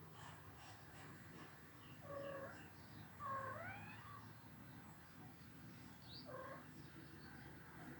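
A cat mewing faintly: three short calls, the second and loudest rising in pitch, over a low steady background hum.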